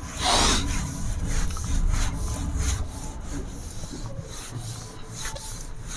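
Whiteboard duster rubbing across a whiteboard in repeated wiping strokes. The strokes are loudest in the first second and grow fainter after about three seconds.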